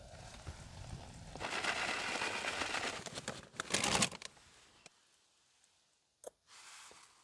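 Rustling and crinkling from handling things while preparing food, loudest for about a second and a half from roughly a second and a half in. A short burst follows near four seconds, then a single sharp click.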